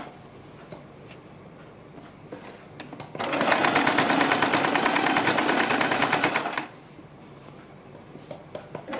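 Domestic electric sewing machine stitching in one run of about three and a half seconds near the middle, a rapid, even patter of needle strokes. Before and after it the machine is stopped, with only faint clicks from handling the cloth.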